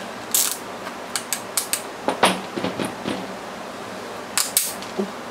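Irregular sharp plastic clicks and snaps, about a dozen, some in quick pairs, from hands fitting plastic battery tie-downs on an RC rock crawler.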